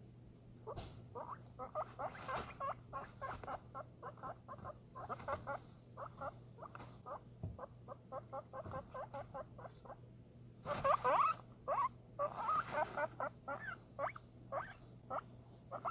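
Guinea pig squeaking excitedly in anticipation of food: a rapid string of short squeaks, several a second, growing louder and more crowded about two-thirds of the way through.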